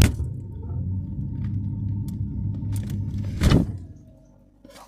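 A knock, then the steady low hum of a running freezer with a faint thin whine over it. A second knock comes about three and a half seconds in, and the hum then fades away.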